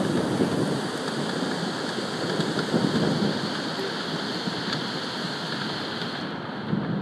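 Rain falling steadily in a storm: a continuous rushing noise with a low rumble underneath.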